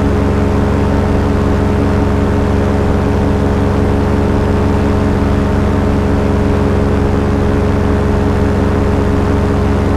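Small aircraft engine running steadily in flight, heard from on board at a constant, unchanging pitch.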